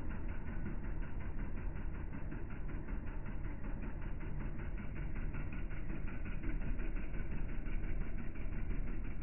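VST Shakti MT 932 mini tractor's three-cylinder diesel engine idling steadily with an even beat.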